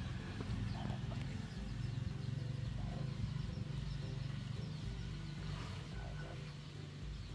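Outdoor background sound: a steady low rumble, with small birds chirping faintly now and then.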